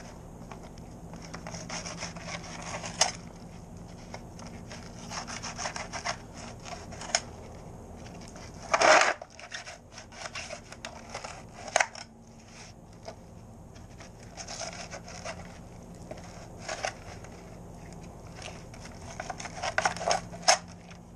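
Fillet knife scraping and sawing along the scaled skin of a sheepshead fillet on a plastic fillet board, in uneven strokes, with the loudest scrape about nine seconds in.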